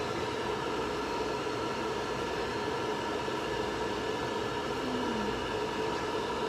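Electric dryer blowing air, a steady fan-motor whir with a constant hum of fixed tones, drying a chinchilla's fur.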